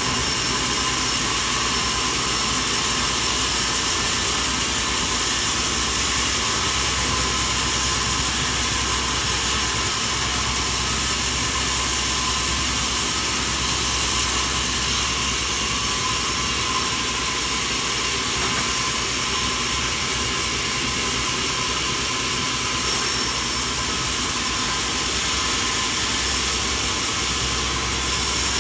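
Sawmill machinery running steadily, a continuous loud mechanical noise without a clear rhythm.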